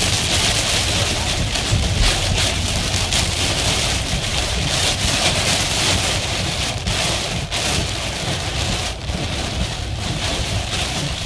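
Heavy hurricane rain and wind beating on a moving car, a steady dense rush of rain noise.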